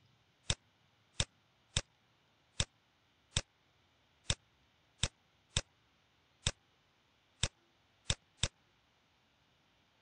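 A computer mouse clicking about a dozen times, single sharp clicks at an uneven pace.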